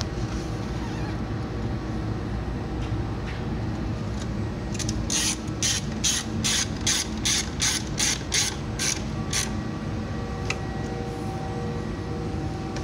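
Ratchet socket wrench with an extension clicking in a run of about a dozen even clicks, about three a second, starting about five seconds in, as a bolt holding the door panel is tightened behind the inner door handle.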